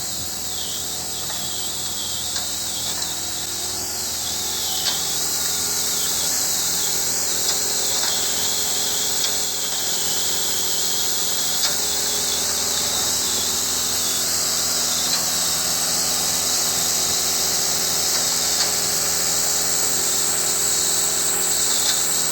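Olin 575 trailer concrete pump running steadily while pumping concrete: a steady engine hum under a strong high hiss, with a few small knocks.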